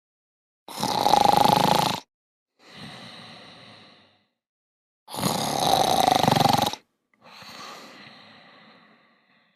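Snoring, two full cycles: a loud snore, then a quieter breath that fades away, repeated about four seconds later.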